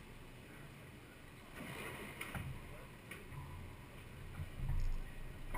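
Quiet racquetball court between rallies: light footsteps and a couple of soft taps on the hardwood floor, faint voices, and a low hum that swells into a rumble near the end.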